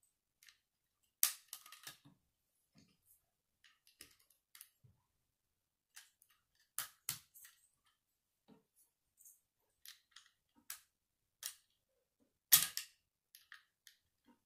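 Plastic Lego bricks clicking and snapping together as they are pressed onto a small build, in scattered sharp clicks, with the loudest snaps about a second in and near the end.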